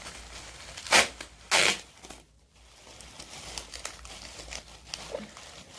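Plastic bubble-wrap packaging being torn open and crinkled by hand: two loud rips about a second and a second and a half in, then lighter crinkling.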